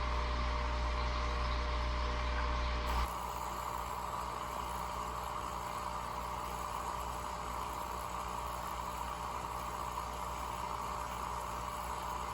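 Steady mechanical hum and hiss. About three seconds in, its deep low part drops away abruptly and a lighter steady hiss carries on.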